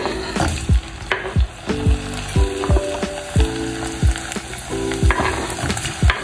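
Plantain slices sizzling and bubbling in hot oil in a deep-fryer basket, a steady hiss of frying. Background music with a steady beat plays over it.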